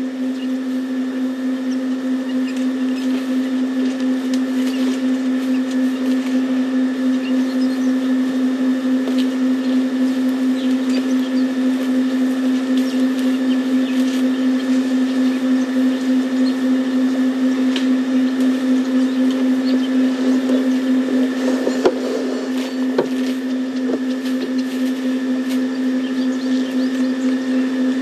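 A steady, even hum on one low tone, with fainter higher tones above it, running unchanged throughout, with a few faint clicks.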